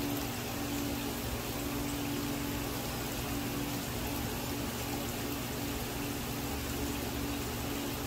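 Small recirculating rock water fountain running: water trickling and splashing steadily from basin to basin over a steady low hum from its pump.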